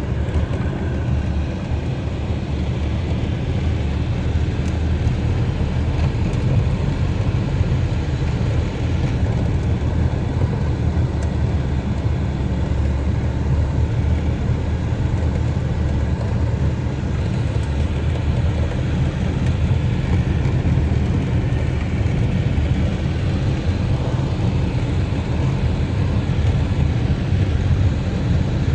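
Steady low rumble and road noise of a vehicle driving, unbroken throughout.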